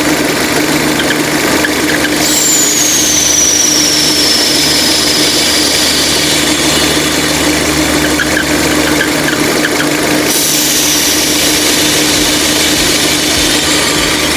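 Peugeot/Citroën 2.0 EW10A engine idling with a steady hum and whine. About two seconds in, a high whistle starts suddenly and slides down in pitch, and a fainter one follows about ten seconds in. It is the well-known noise of a punctured diaphragm in the valve cover.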